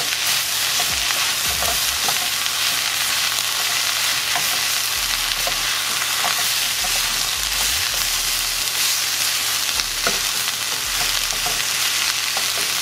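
Sliced bell peppers and onions sizzling steadily in hot oil in a wok on medium-high heat, stirred and tossed with a spatula.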